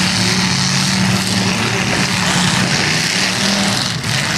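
Demolition derby cars' engines running together in a loud, steady drone.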